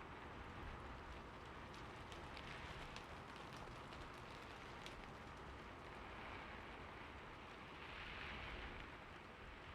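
Soft, steady rain falling, with individual drops ticking through it and a brief swell in the rain noise near the end.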